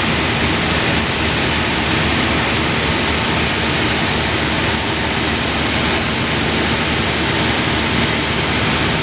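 Steady cabin drone of a Beechcraft Duchess in flight, heard inside the cockpit: its two four-cylinder piston engines and propellers under the rush of air past the airframe.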